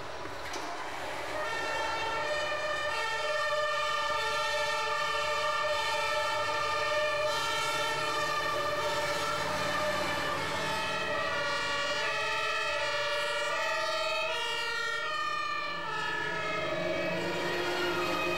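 Two-tone sirens of several airport crash tenders sounding at once, starting about a second and a half in; their alternating high-low notes overlap out of step, over a low engine rumble as the trucks turn out on a practice alarm.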